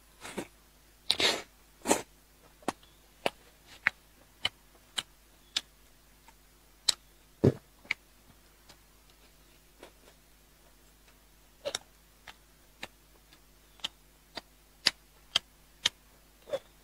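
Close-miked chewing of braised meat: a string of short wet smacks and mouth clicks, about one or two a second, with a few louder ones early and about halfway through.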